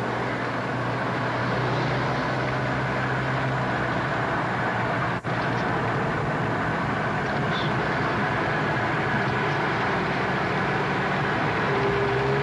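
Steady road and engine noise inside a moving car, with a low hum underneath. A brief dropout cuts the sound for an instant about five seconds in.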